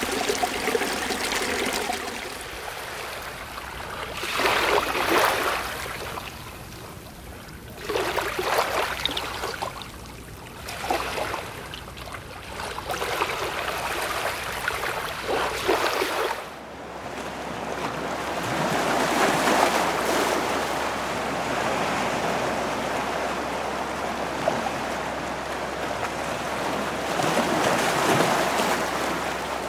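A mountain stream rushing over rocks, which gives way about three seconds in to waves washing into a cove, surging in every three to four seconds. About halfway through this changes to a steadier wash of surf along a rocky sea coast, which swells up twice.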